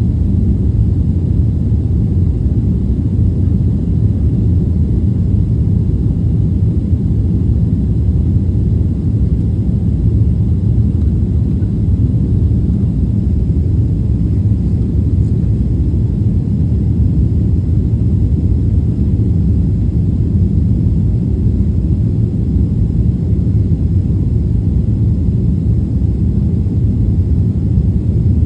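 Steady low rumble of a jet airliner's engines heard inside the passenger cabin.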